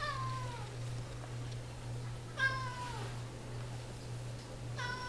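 A domestic cat meowing three times, about two and a half seconds apart, each meow sliding down in pitch. A steady low hum sits underneath.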